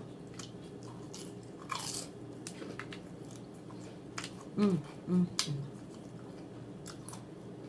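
A woman chewing crispy fried chicken close to the microphone: scattered crunches and mouth clicks. Two short low hums come from her a little past halfway.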